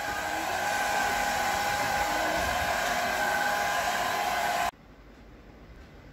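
Handheld hair dryer blowing steadily, a steady tone over the rush of air. It cuts off suddenly about four and a half seconds in, leaving faint room sound.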